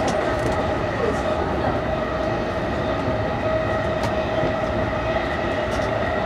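E233 series electric commuter train running at speed, heard from the cab: a steady rumble of wheels on rail under a steady whine, with a few sharp clicks about 1, 4 and 6 seconds in.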